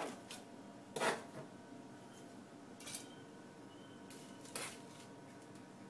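Light clinks and knocks of kitchenware being handled around a glass halogen-oven bowl: three short ones about a second, three seconds and four and a half seconds in, the first the loudest, over a faint steady hum.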